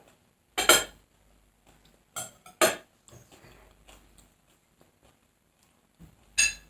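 A person eating a meal: four short, loud, sharp noises of bites and utensils on dishes, just under a second in, twice around two and a half seconds, and near the end, with faint chewing and small clinks between.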